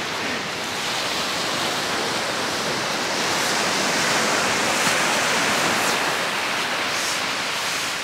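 Surf washing up the beach: a steady rushing noise that swells a little in the middle.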